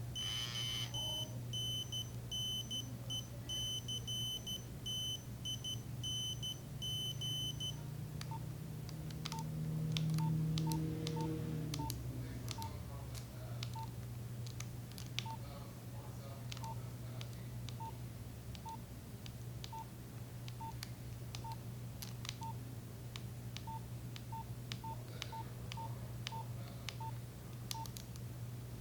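Nokia 3395 mobile phone beeping. For about the first eight seconds a high-pitched tone pulses in a broken rhythm. After that, short keypad beeps with button clicks come irregularly, about one or two a second, as keys are pressed through the menus. A low steady hum runs underneath.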